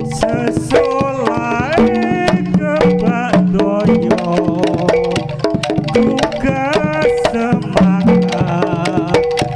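Jaranan gamelan accompaniment: kendang drum strokes and struck metal gamelan notes, with a wavering high melody line over them, in a steady rhythm.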